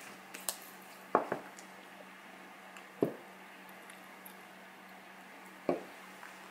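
Small toiletry and accessory items handled and set down on a cloth-covered table: four soft knocks, two close together about a second in, one about three seconds in and one near the end as a small plastic hand-sanitizer bottle is stood upright, over a faint steady low hum.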